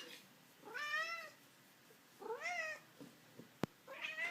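Domestic cat meowing three times at a bird it sees outside, each call about half a second long, rising then falling in pitch. A single sharp click sounds between the second and third meow.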